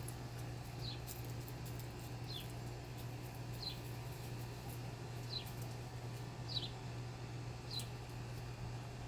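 A small bird's short, high chirp that falls in pitch, repeated six times about every second and a half, over a steady low hum.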